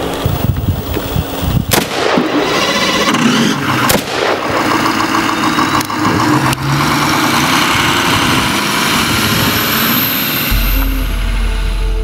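Several single shots from an AK-47 rifle (7.62×39 mm), about two seconds apart, over a running vehicle engine. A low steady hum comes in near the end.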